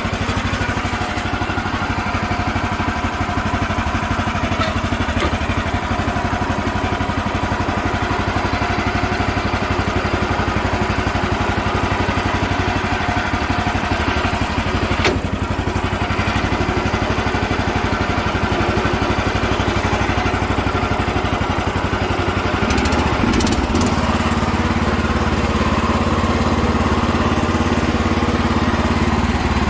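Engine of a 1966 Sears Suburban 12 garden tractor running steadily as the tractor is driven. There is a sharp click about halfway through, and the engine note changes about three-quarters of the way in, then holds steady.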